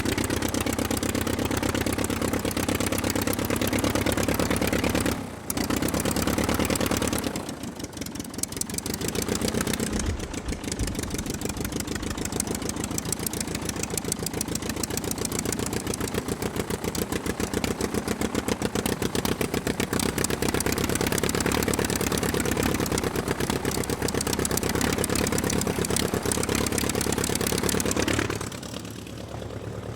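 Aircraft engine running steadily with a fast, even pulse. Its level dips briefly three times.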